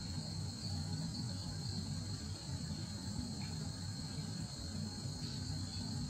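Insect chorus: a steady, unbroken high trill, over a low rumble.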